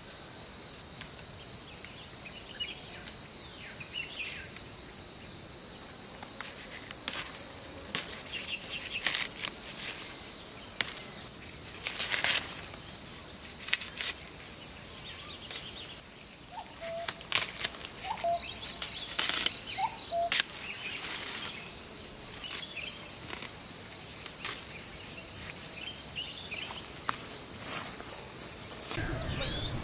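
Leafy branches rustling and snapping in a series of short bursts as tofu-tree leaves are plucked by hand, over a steady high insect drone with scattered bird chirps.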